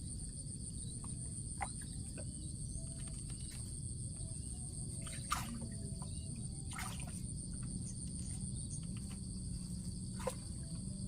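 Insects trilling steadily in two high tones over a low background rumble, with a few short sharp clicks, the loudest about five seconds in.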